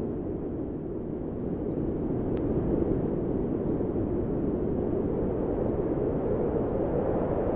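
Steady low wind blowing, an even rumbling rush with no distinct flapping or gusts.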